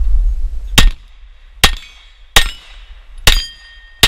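Five 9 mm shots from a Glock 34 pistol, fired about three-quarters of a second apart, each followed by the ring of a steel plate being hit. A low rumble comes just before the first shot.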